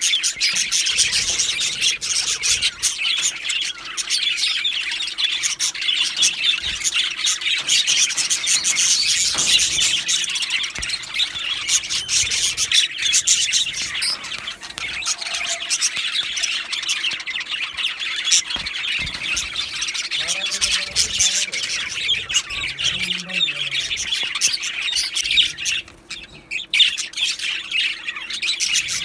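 Male budgerigars chattering and warbling nonstop, a dense mix of chirps and squawks, with a brief lull near the end.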